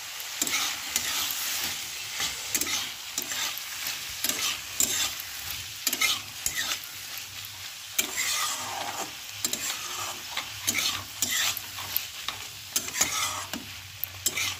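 Metal spatula scraping and clinking against a metal kadhai as peas, onions, capsicum and green chillies are stirred, with the vegetables sizzling in hot oil. The strokes come in a quick, irregular run.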